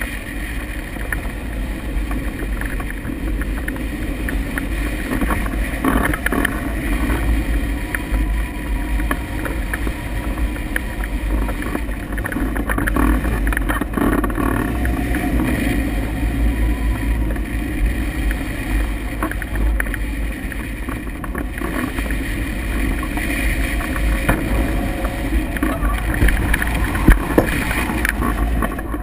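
Steady wind rush and buffeting on the microphone of a camera mounted on a hang glider in flight.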